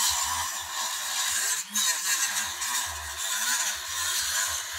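Corded rotary tool with a small cutting disc grinding through the plastic seam between an LED bulb's diffuser and its housing: a steady high whine and grinding that dips briefly about a second and a half in.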